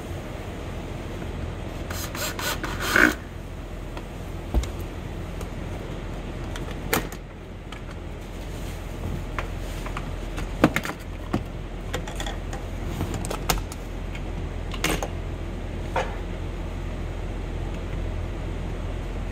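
Scattered clicks, rattles and knocks of plastic and metal parts being worked loose as a BMW X7 rear door blind assembly, with its guide rail and motor, is unclipped and lifted out of the door, over a steady low hum. The loudest is a short rattly run about three seconds in.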